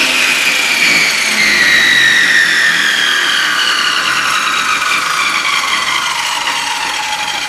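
Table saw motor and blade winding down after being switched off: a whine falling steadily in pitch and slowly fading.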